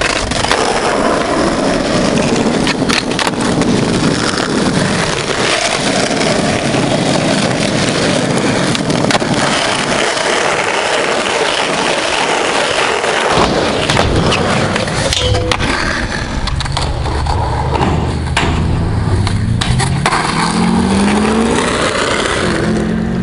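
Skateboard wheels rolling on rough asphalt, a continuous rumbling hiss, with a few sharp clacks of the board hitting the ground now and then.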